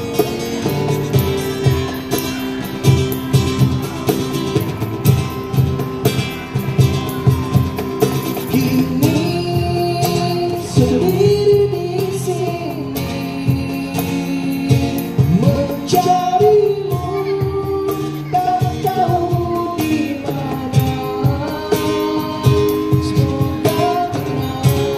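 Live acoustic band music: strummed acoustic guitar with cajon and tambourine keeping a steady beat. A singing voice joins about a third of the way in and carries a gliding melody to the end.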